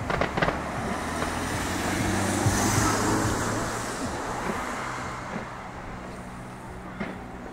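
Road traffic noise: a vehicle goes by, its noise swelling to a peak about halfway and fading away, over a steady low engine hum. A few last firework crackles sound at the very start.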